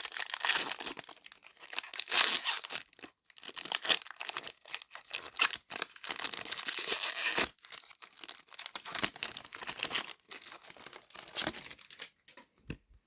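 Plastic trading-card pack wrapper being torn open and crinkled, with a long, loud stretch of crinkling that stops about seven and a half seconds in, followed by lighter rustling as the cards are handled.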